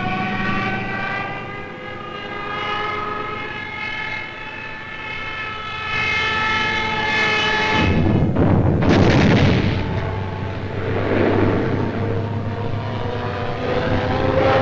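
Aircraft engine whine, a stack of tones rising slowly in pitch as in a dive, for about eight seconds. It is cut off by a sudden loud explosion, followed by more blasts and the roar of aircraft.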